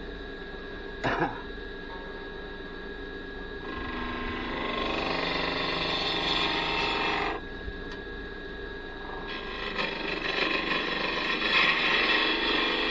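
Wood lathe running with a steady motor hum while a turning tool cuts the spinning cherry blank in two passes, about four to seven seconds in and again from about ten seconds on, each cut louder than the hum. A brief click about a second in.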